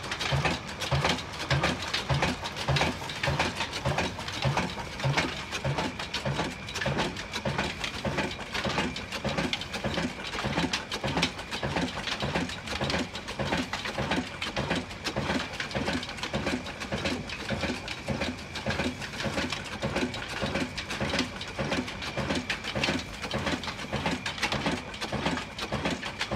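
Old black diesel engine running at a slow, steady speed, its exhaust beats thudding evenly about two to three times a second over a mechanical clatter.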